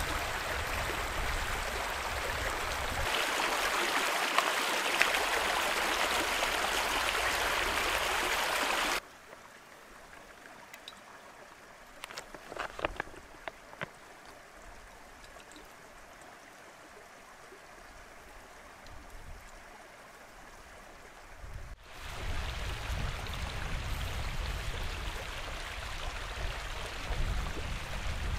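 Shallow moorland stream rushing over rocks, close up; it cuts off suddenly about nine seconds in. Then a quiet stretch with brief trickling and dripping as water is squeezed through a squeeze filter into a bottle, and in the last seconds wind rumbling on the microphone over the stream.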